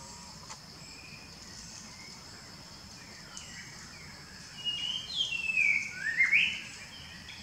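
Bird calling: a few faint chirps, then about five seconds in a loud run of clear notes that glide down and then sweep up again. Under it runs a steady high insect drone.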